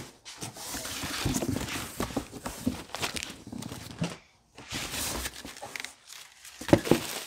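Packaging rustling and crinkling as air-suspension struts are lifted out of their shipping box, with scattered knocks of parts being handled and one sharp knock near the end.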